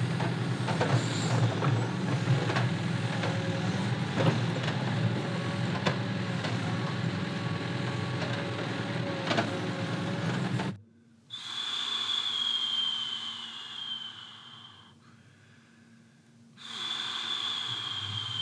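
A steady low rumble with scattered clicks that cuts off abruptly about eleven seconds in, leaving a quiet room where a thin falling whistle sounds twice, each lasting about two seconds.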